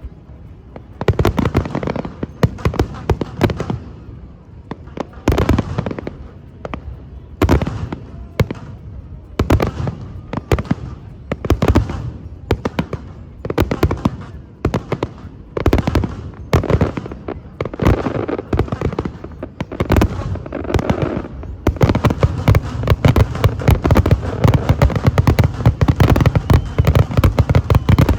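Fireworks display: aerial shells bursting with loud bangs and trailing crackle every second or so. About three-quarters of the way through, this turns into a dense, continuous barrage of rapid bangs.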